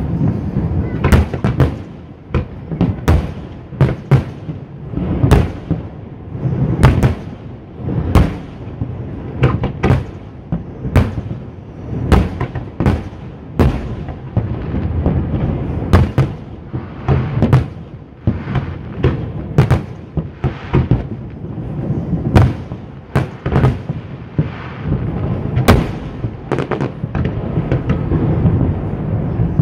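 Aerial firework shells bursting in quick succession, sharp bangs about one or two a second over a continuous low rumble.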